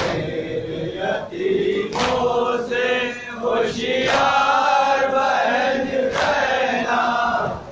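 A group of men chanting a Muharram lament (nauha) together, loudly, with sharp slaps falling about every two seconds in time with the chant: hands striking chests in matam.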